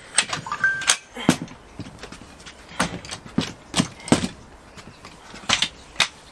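Telescopic aluminium ladder being extended section by section, its metal sections clacking as each one slides up and locks: about ten sharp clacks at irregular intervals.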